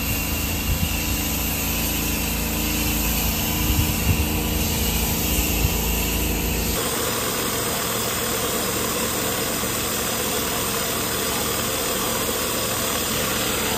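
An engine running steadily. About seven seconds in the sound changes abruptly: the low rumble drops away and a lighter, steady running sound carries on.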